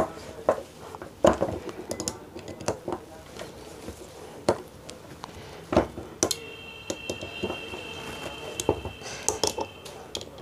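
Scattered metal clicks and taps of a T-handle driver and bit turning and seating screws in the metal housing of an RO diaphragm booster pump. A faint steady high whine runs through the second half and stops shortly before the end.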